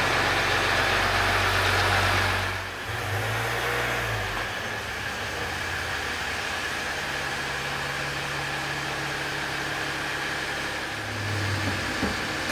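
Ram 1500 EcoDiesel's 3-liter V6 turbo diesel engine running as the truck is driven off. It is louder for the first two seconds, then gives a short rising swell and settles to a steady, quieter running sound. It swells again near the end as the truck comes back.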